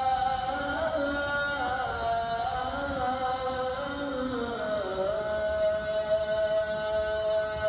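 A single voice chanting melodically, unaccompanied, in long ornamented phrases whose notes slide slowly up and down, settling about two-thirds of the way in on one long held note.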